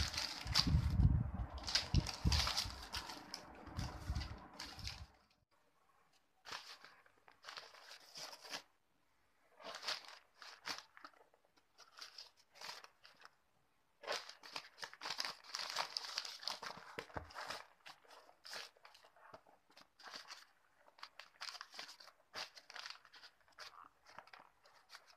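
Sheets of newspaper being folded and crumpled by hand around a packet, rustling and crinkling. It is fuller and heavier for the first five seconds or so, then comes in short irregular bursts with brief pauses.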